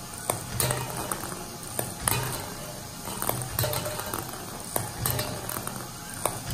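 Ping pong ball roller machine built from metal construction-kit parts running: irregular light clicks and taps as plastic ping pong balls roll and knock along its metal track, over a low hum from its small belt-driven motor that comes and goes.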